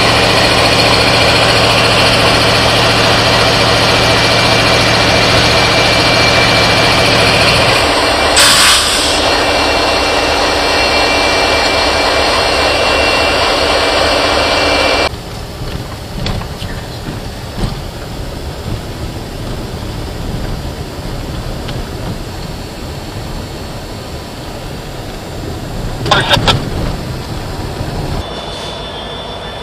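Canadian National diesel-electric locomotives passing close by, engines running loudly with a steady low drone. There is a brief sharp noise about eight seconds in, and about halfway through the sound drops suddenly to a quieter, uneven rumble.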